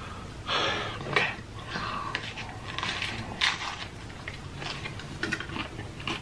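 A man biting into and chewing a hard taco shell: a run of irregular crunches and mouth noises, with loud breaths through the nose.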